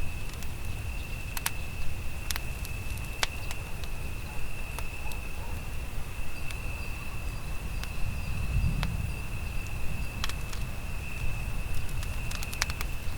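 Campfire crackling, with sharp wood pops every second or two over a low rumble, and a steady high insect trill, like a cricket, running underneath.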